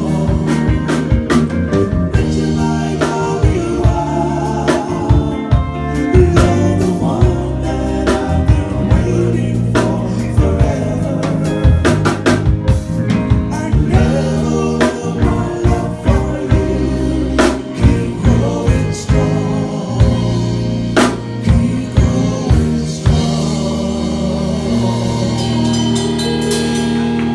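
Live band playing a slow soul ballad: a male lead voice sings over guitar and a drum kit, with regular drum hits. Near the end the band holds one long final chord.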